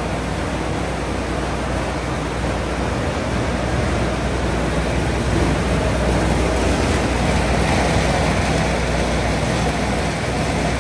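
Maize dehulling and degerming machine running: a steady loud mechanical rush with a low, even motor hum underneath.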